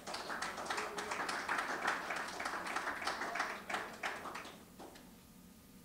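A congregation applauding, a dense patter of many hands clapping that dies away about four and a half seconds in.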